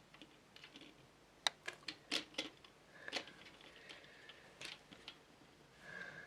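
Plastic model kit parts clicking and tapping against each other as they are handled and slotted together: a scatter of light, irregular clicks, busiest in the middle.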